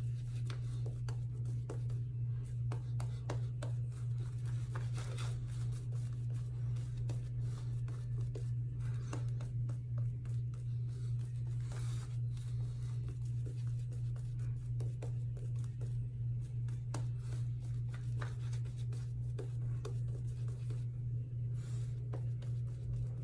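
Synthetic-knot shaving brush faintly scratching and swishing as lather is brushed onto the face, in irregular strokes. A steady low hum runs underneath and is the loudest sound.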